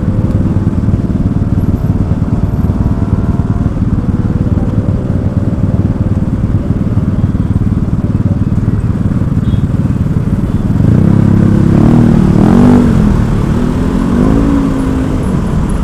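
Motorcycle engine running under a steady low rumble of road and wind noise. About eleven seconds in the engine note grows louder, rising and falling in pitch for a few seconds as the revs change.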